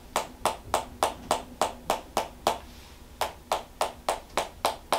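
Tok Sen massage: a wooden hammer tapping on a wooden stick held against the shoulder, a quick even run of sharp taps at about four a second, with a short pause just past halfway.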